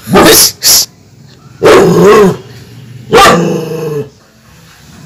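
German shepherd barking loud. There are two quick barks at the start, then two longer drawn-out barks about a second and a half apart.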